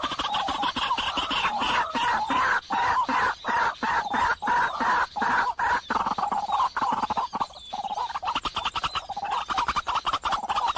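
Birds calling together in a dense, continuous clamour, broken by brief gaps several times a second.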